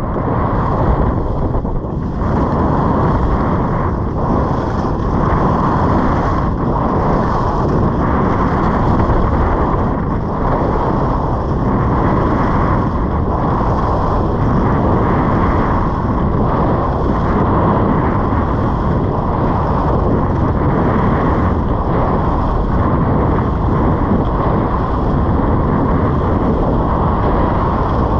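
Steady wind rushing over the microphone of a fast-moving skier's camera, mixed with skis sliding on groomed snow.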